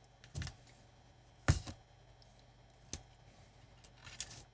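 Handling sounds of dial cord being knotted onto its tension spring inside a transistor radio: a few sharp clicks and taps, scattered and irregular, the loudest about a second and a half in.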